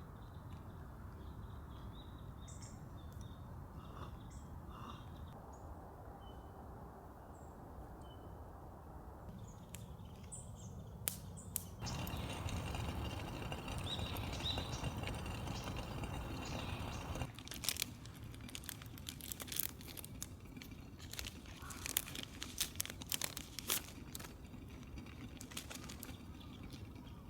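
Small birds chirping faintly, then a few seconds of steady rushing noise, followed by a long run of crinkling and crackling clicks as something is handled close by.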